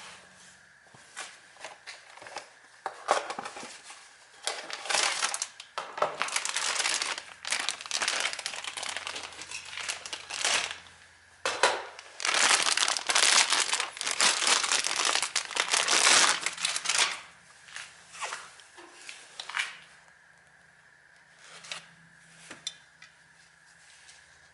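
Crinkling and rustling handling noise in irregular bursts, sharpest and densest in the middle stretch, then dying away to a few scattered clicks.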